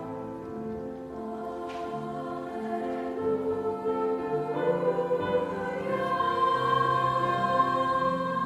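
High-school treble choir of girls' voices singing held chords, growing louder about halfway through with a high note sustained on top near the end.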